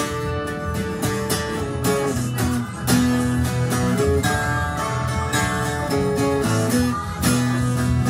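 Tagima Kansas 12-string acoustic guitar strummed with a pick, playing a chord riff: repeated strums over ringing, held chords.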